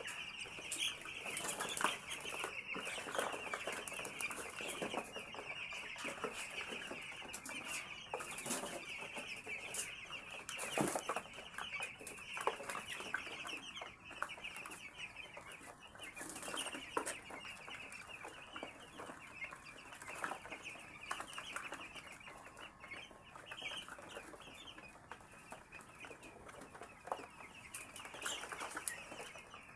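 A flock of 11-day-old chicks peeping continuously, many high chirps overlapping into a steady chatter, with scattered clicks and knocks through it.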